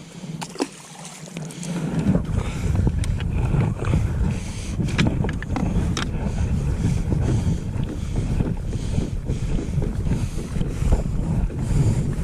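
Wind buffeting the microphone on a kayak, coming up strongly about two seconds in as a steady low rumble, with scattered sharp clicks and knocks on top.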